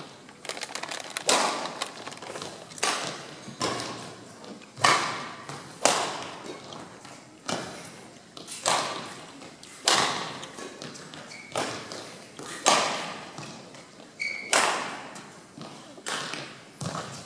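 Badminton rally: rackets striking the shuttlecock about once a second, each hit a sharp crack with a short echo in a large hall.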